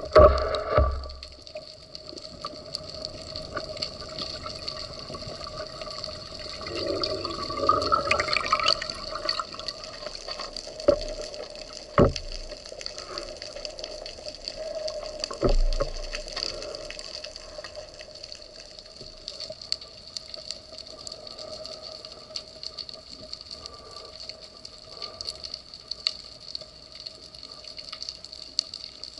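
Underwater sound heard through a diving camera housing: a constant fine crackle of clicks over a faint steady whine. Water sloshes about seven to nine seconds in, and three sharp knocks come around eleven, twelve and fifteen seconds.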